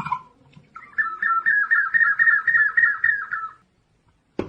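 Chimú ceramic whistle jar sounding a parrot call: a high, rapidly warbling whistle that trills about six times a second for close to three seconds. A sharp knock comes near the end.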